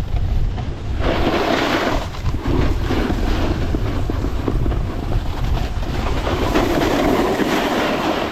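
Snowboard edge scraping and hissing over snow in surges while riding downhill, with wind buffeting the microphone as a steady low rumble.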